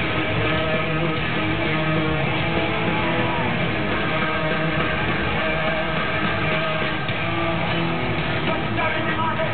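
Loud live heavy metal with electric guitars, played through an arena PA and recorded from among the crowd, so it sounds dull and lacks treble.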